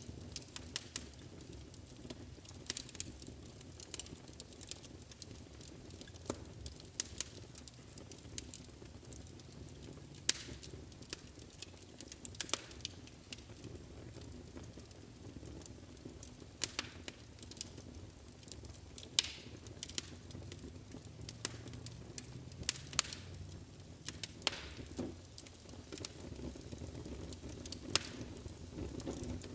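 Wood fire burning in a fireplace: irregular sharp crackles and pops over a steady low rumble of flames.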